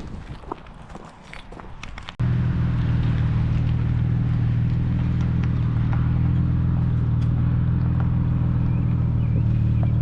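A few light knocks and clicks, then, about two seconds in, a truck engine starts up suddenly and runs steadily at idle close by with a low, even drone.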